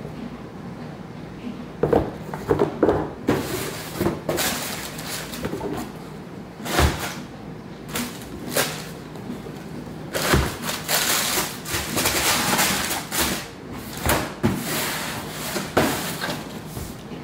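Sneakers being packed into a cardboard shoebox: tissue paper rustling in long stretches as it is folded over the shoes, with several sharp knocks as the shoes are set down and the box and lid are handled.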